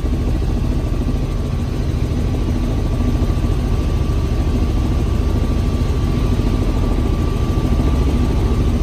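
Light helicopter in cruise flight heard from inside its cabin: a steady, loud engine and rotor drone with a rapid low flutter, and a thin steady whine above it.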